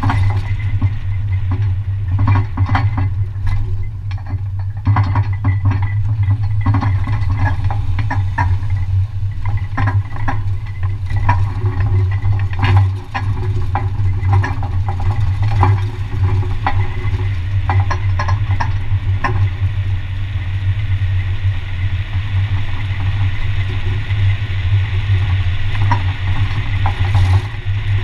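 Open landscaping trailer towed behind a pickup on a paved road: a steady low road rumble with frequent clanks and rattles from the trailer and its load of tools.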